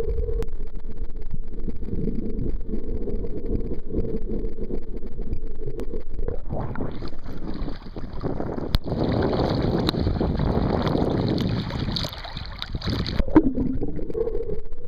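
Camera in a waterproof housing in the sea: muffled underwater water noise with a faint steady hum. From about six and a half seconds in, it breaks the surface into wind and choppy, splashing waves, then ducks back under water near the end.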